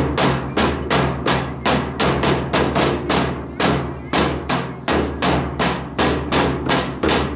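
Sharp percussive strikes in a steady beat, about three a second, each ringing briefly, keeping time for the drill; a low steady hum runs beneath.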